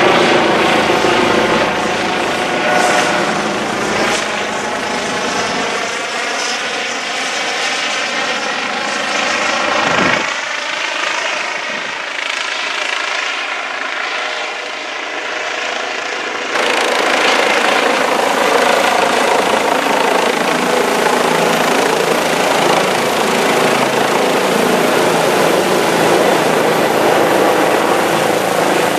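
Helicopter coming in to land, its rotor and engine running loud and steady; about halfway through the sound steps up suddenly, louder and fuller.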